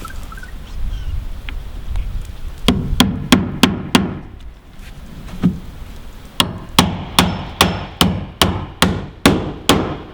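Hammer driving galvanized nails into Miratec trim board. A quick run of about six blows comes about three seconds in, then a single blow, then a steady series of about nine blows at roughly two and a half a second.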